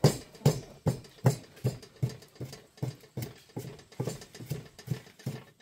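Rhythmic knocking: even, sharp strikes at about two and a half a second, each with a dull thud underneath.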